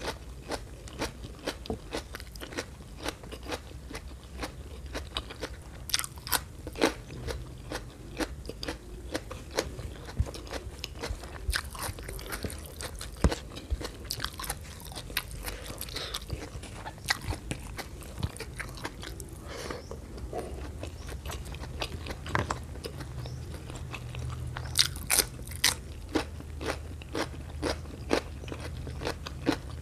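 Close-miked chewing of a mouthful of spicy fried rice: a dense run of sharp wet mouth clicks and small crunches, several a second, with a few louder ones, over a steady low hum.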